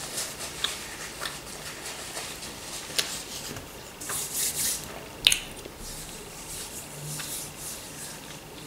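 A person chewing a mouthful of cheesy fried chebupizza with the mouth closed: soft wet smacking with scattered clicks, a sharp one about three seconds in and the strongest just past five seconds.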